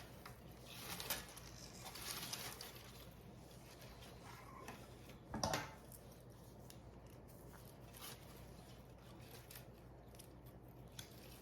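Faint rustling and crinkling of an artificial greenery strand being wrapped around a lantern by hand, with a sharper click about five and a half seconds in.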